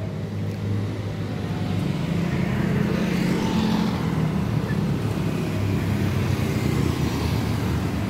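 Road traffic with motorcycles passing close by, their engines running as a steady low hum that swells a couple of seconds in.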